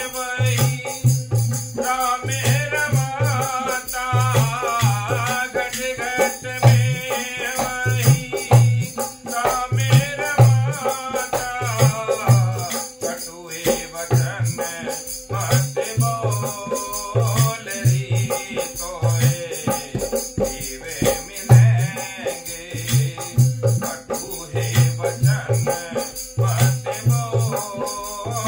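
Devotional bhajan: a man sings long, sliding vocal lines while he accompanies himself on an ektara, plucked in a steady low pulse, and on wooden khartal clappers clicking in rhythm.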